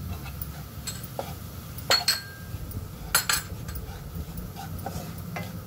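Wooden spatula stirring and scraping flour into butter and garlic in a nonstick frying pan, with a few sharp knocks of the spatula against the pan, about two seconds in, again after three seconds and near the end.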